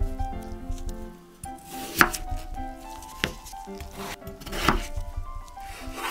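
Kitchen knife cutting through peeled raw potatoes and knocking on a wooden cutting board: a few sharp chops, the loudest about two seconds in, then again near three and near five seconds.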